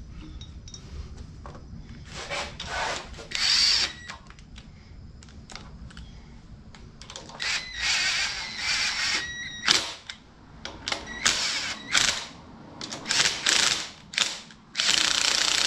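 Cordless impact driver running in a series of short bursts, tightening the bolts that hold a flycutter head section to an engine block, with a thin motor whine; near the end it runs steadily.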